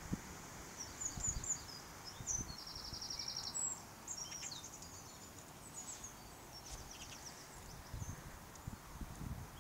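Small birds chirping in the background, many short high calls with a brief rapid trill about three seconds in, over soft low thumps and rustling.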